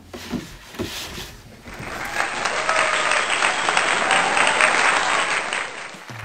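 Audience applause, a dense even clapping that starts about two seconds in after a few light knocks and stops shortly before the end.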